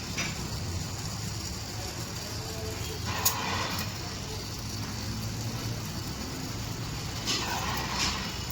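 Engine running steadily at idle, with one sharp click about three seconds in.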